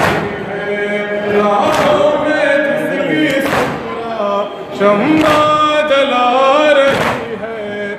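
Male voices chanting a Shia noha lament in a group, with the men's hands striking their chests in unison (matam) about every second and three-quarters, four strokes in all.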